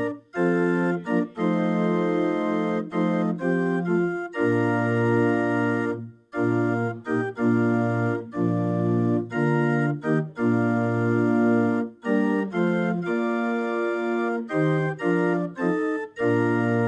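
Organ playing sustained chords that change every second or so, with short breaks between phrases, including one about six seconds in.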